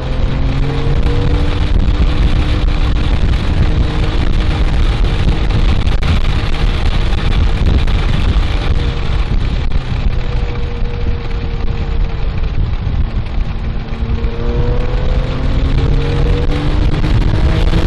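Porsche 997.1 GT3's flat-six engine under hard acceleration on track, heard from inside the cabin with wind and road noise. The engine note rises and breaks through upshifts, drops under braking about halfway through, then climbs again near the end.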